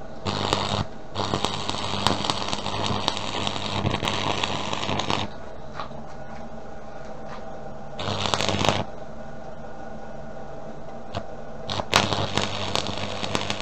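Stick (arc) welding: the electrode's arc crackling in separate runs as a steel cross is welded into a ring — a short burst, a run of about four seconds, then two more short runs. A steady low hum runs underneath.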